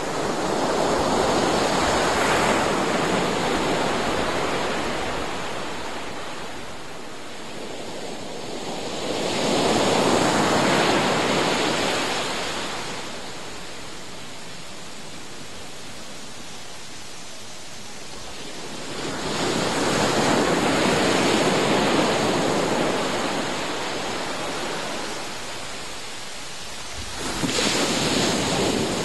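Ocean waves breaking and washing up a sandy beach. The surf swells and fades in four slow surges, roughly every eight to ten seconds.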